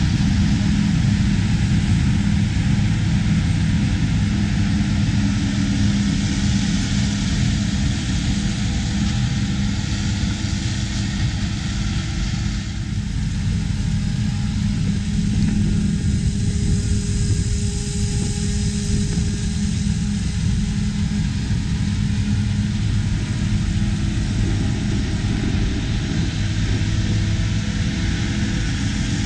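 Claas Jaguar 870 forage harvester running under full load, its engine and cutterhead making a steady loud drone while it chops corn and blows the crop into a forage wagon. About halfway through the sound becomes more distant and duller.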